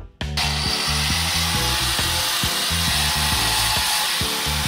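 Upbeat background music with a steady bass rhythm, joined about half a second in by the loud, even hiss of a power tool running in a workshop.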